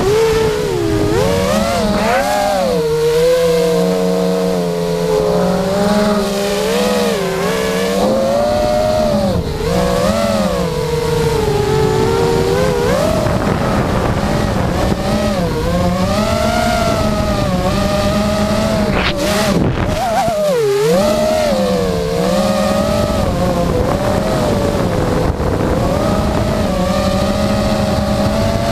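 FPV racing quadcopter's brushless motors whining, the pitch rising and falling constantly with throttle as it chases an RC car, with a sharp throttle cut and pickup about two-thirds of the way in.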